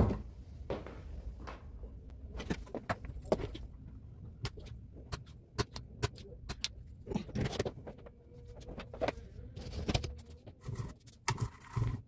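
Handling noise from a bass amplifier's circuit board being turned over and moved about on a workbench: many irregular clicks and knocks, with a sharp one at the very start and a dense cluster near the end.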